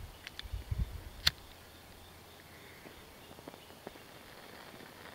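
Disposable lighter being flicked, its spark wheel giving a few sharp clicks during the first second and a half, then only faint ticks. Low wind rumble on the microphone under the first clicks.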